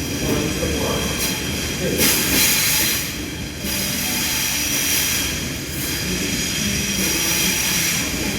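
Sydney Trains electric passenger train running along the platform with low rumble and steady high-pitched wheel squeal. Short bursts of hiss come about 2 seconds in and again near the end.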